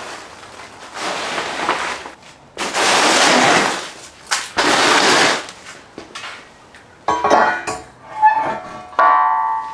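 Styrofoam packing peanuts rustling as a steel winch carrier is pulled out of its box. In the last few seconds the carrier clanks down on the concrete floor, with sharp metal knocks and a brief metallic ring near the end.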